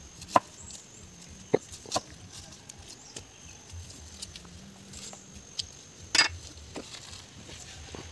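A cleaver knocking against a wooden chopping board in several sharp, scattered taps as shallots are peeled and cut. The loudest knock comes about six seconds in.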